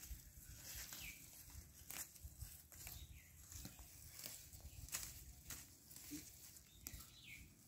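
Faint, scattered rustling and snapping of weeds and small plants being pulled up by hand. A couple of faint, short, high chirping calls come in, one about a second in and one near the end.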